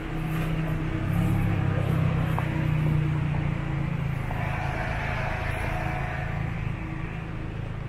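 City street traffic: a motor vehicle's engine hum, steady and low, loudest in the first three seconds.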